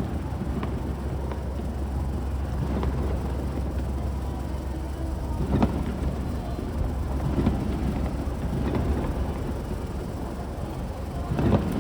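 Fireworks bursting: a sharp boom about five and a half seconds in and another near the end, over a steady low rumble.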